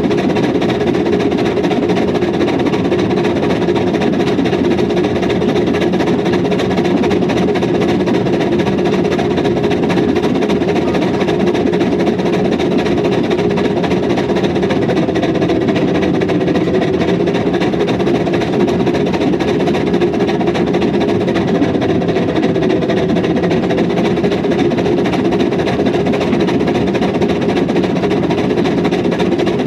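Hunslet No 827 "Sybil" narrow-gauge steam locomotive running steadily along the line: a quick, even beat of exhaust from the chimney together with the clatter of the engine and wheels on the track, heard close up from on top of the boiler.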